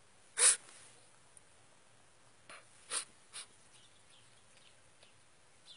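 A man breathing close to the microphone in a pause between sentences: a sharp, loud breath or sniff about half a second in, then a few softer breaths around three seconds in.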